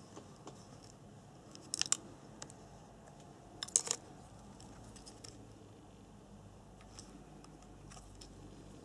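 Handling clicks from fingers working at the RC buggy's electric motor and its wiring: two short bursts of sharp clicks about two seconds apart, then a few faint ticks.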